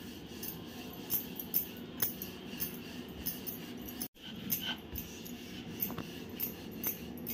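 Wooden rolling pin rolling out a thin puran poli on a wooden board: faint rolling and scraping with light, irregular knocks.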